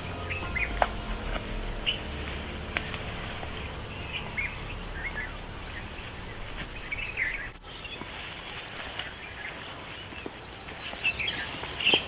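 Forest ambience: a steady high insect buzz with scattered short bird chirps and the odd twig snap. Near the end come rustling footsteps through the undergrowth.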